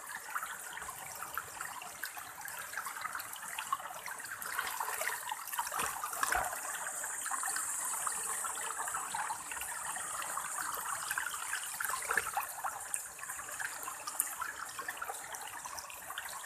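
Shallow river water running and splashing steadily, with a sharp knock about six seconds in.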